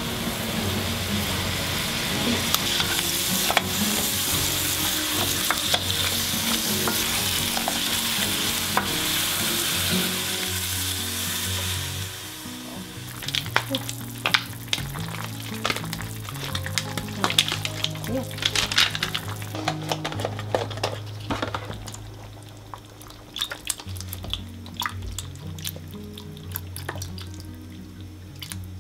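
Onion, carrot, mushrooms and squash sizzling in oil in an aluminium saucepan: a dense, steady hiss for about the first twelve seconds. The hiss then drops away, leaving scattered small clicks and taps from the pot. Quiet background music runs underneath.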